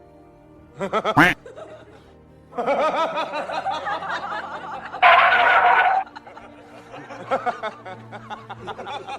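Background music with wavering, laugh-like vocal sounds, loudest about five seconds in.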